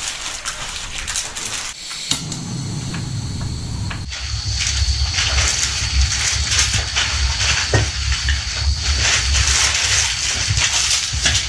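Rustling gear, then from about four seconds in a backpacking gas stove on a screw-on canister burning with a steady hiss and a faint high steady tone.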